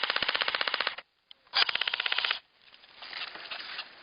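Airsoft rifle firing on full auto: a rapid, even string of shots that stops about a second in, then a second short burst of just under a second.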